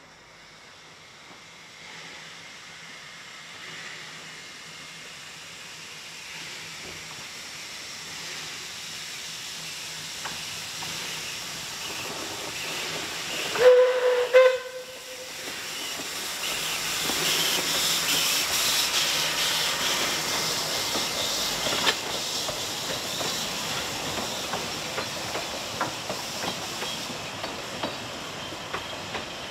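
Narrow-gauge steam locomotive 12A approaching, giving two short blasts on its five-chime steam whistle about halfway through, then passing with loud steam hiss and exhaust; near the end its carriages' wheels click regularly over the rail joints.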